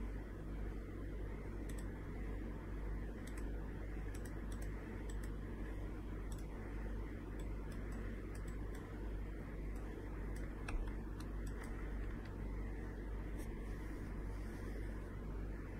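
Scattered light clicks of computer keys at irregular intervals, some in quick pairs and one a little louder about two-thirds of the way through, over a steady low hum.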